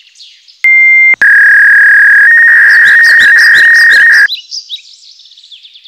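Birds chirping, cut through by loud, clipped electronic tones: a half-second high beep, then a slightly lower steady tone for about three seconds that steps up in pitch partway and cuts off suddenly.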